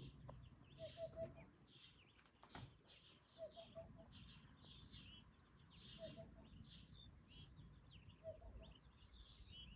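Faint birdsong: several birds chirping in quick high twittering phrases, over and over, with a short low three-note call repeating about every two and a half seconds.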